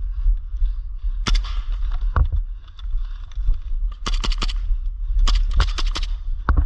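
Airsoft gun firing: sharp single shots, then two quick strings of shots about four and five seconds in, over a steady low rumble of wind and handling noise on the microphone.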